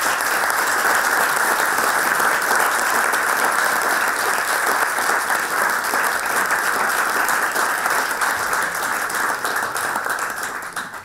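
An audience applauding with steady clapping, which fades away near the end.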